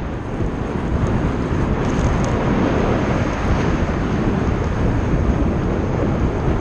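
Steady wind rumble buffeting the microphone of a camera on a moving road bicycle at speed.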